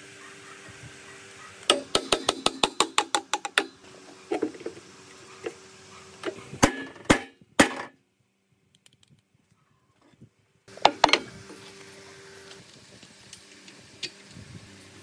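Metal parts of an old electric motor being struck and knocked during disassembly. A fast run of about a dozen sharp metallic taps comes first, then a few lighter taps and three heavy blows. After a few seconds of silence there is another short cluster of knocks.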